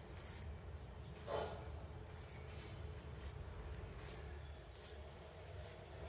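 A thin wooden stick rubbing and scraping against a young potted orange tree: a run of faint, short scratches, with one louder scrape about a second and a half in, over a low steady hum.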